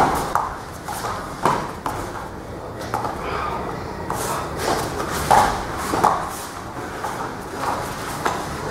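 Scuffling and irregular thumps of two people grappling on a padded mat, with bodies and bare feet striking and sliding on it.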